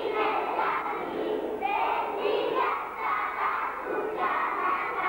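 Many young children's voices together, in short phrases with brief pauses between them.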